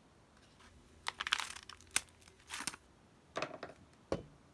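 Plastic packet of instant snow crinkling as it is cut open with scissors, in several short bursts, with a sharp click near the end.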